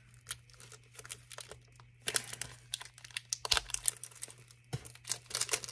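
Plastic shrink-wrap on a small boxed eyeshadow palette being crinkled and torn open by hand: scattered crackles and clicks that come thicker from about two seconds in and again near the end.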